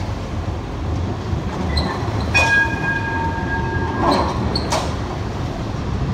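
Combino tram passing close on a curve, its wheels squealing in a steady high tone for about a second and a half in the middle, followed by a sharp click as the wheels run over the track, over a low rumble of the tram and street traffic.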